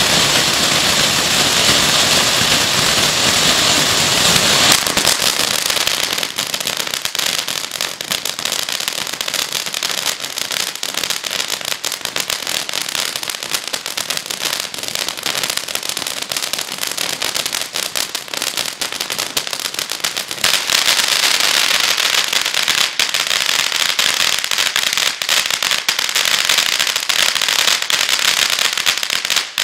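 Svea 'San Francisco' 15-step ground fountain firework burning through its stages. It opens with a steady loud hiss of jetting sparks. From about six seconds in it gives way to dense crackling, and about twenty seconds in the hiss swells again under continued crackling.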